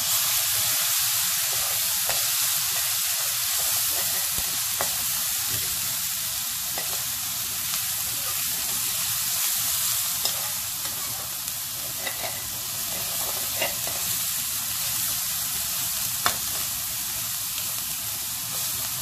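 Onion-tomato masala with freshly added ground spices sizzling in hot oil in a metal kadai, a steady frying hiss, as a slotted metal spoon stirs it, with a few light clicks of the spoon against the pan.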